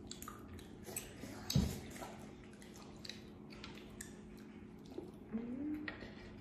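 Cooked mussel shells clicking and scraping as they are pried open by hand, with small wet squishing sounds of the meat being pulled out and chewed. A thump about a second and a half in, and a brief rising hum near the end.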